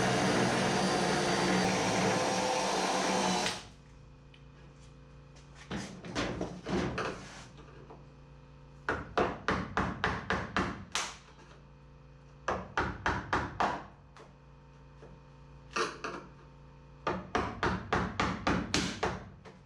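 A drill running steadily, cutting spot welds in a car's sheet-steel body, stops about three and a half seconds in. Several bursts of quick sharp metal knocks follow, about five a second.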